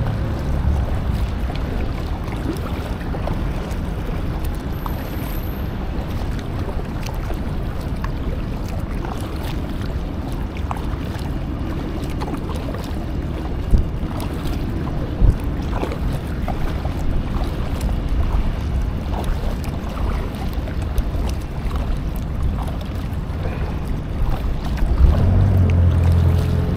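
Paddle water splashing and dripping around a small inflatable packraft over a steady low rumble of wind on the microphone, with two sharper knocks a little past the middle.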